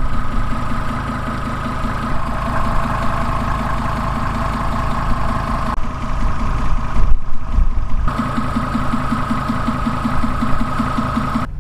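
Mercedes T1 camper van engine idling steadily as it warms up, with an even beat and a steady whine above it.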